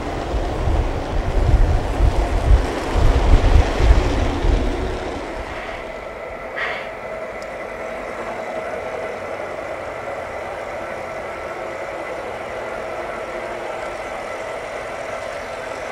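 G scale model freight cars rolling past close by on track, a loud, uneven low rumble. After about five seconds it gives way to a quieter steady hum with a faint steady tone as the train runs farther off.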